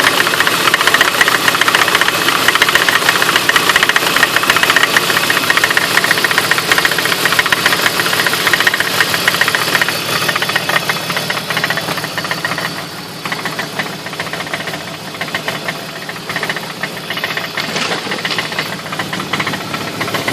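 2003 BMW E46 325i inline-six idling with a rapid, steady knocking from the front of the engine, which the owner suspects is a failing, slightly leaking water pump. The sound grows a little fainter about halfway through.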